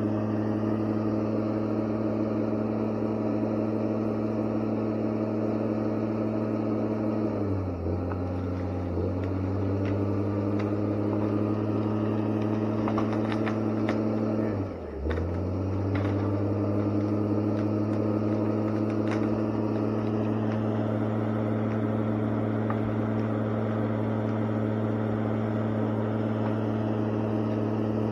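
Heavy logging machine's diesel engine running steadily at working speed. Its pitch sags briefly under load about a quarter of the way in and again, more deeply, about halfway, each time recovering.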